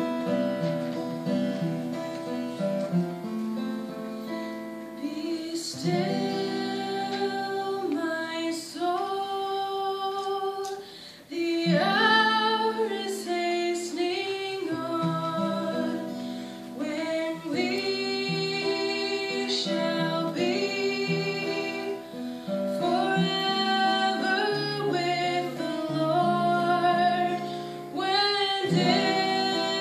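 A woman singing a gospel hymn, accompanied by a strummed and picked acoustic guitar. The guitar plays alone for the first few seconds, then her voice comes in and carries the melody over it.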